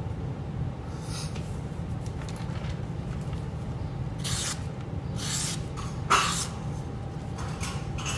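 Damascus-steel chef knife making about five short slicing strokes, each a brief hiss, the loudest a little after the middle, over a steady low hum.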